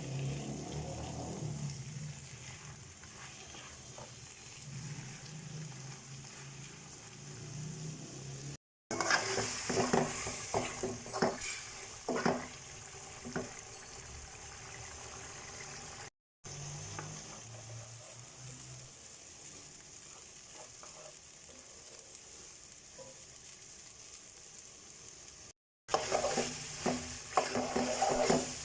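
Khichuri with pigeon meat frying in a pot with a steady sizzle. In two louder stretches a spatula scrapes and knocks against the pot as it is stirred. The sound breaks off abruptly for a moment three times.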